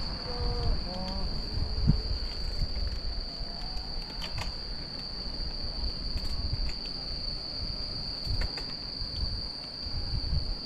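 A steady, high-pitched insect chorus shrilling without a break, over a low, uneven rumble of wind and ride noise.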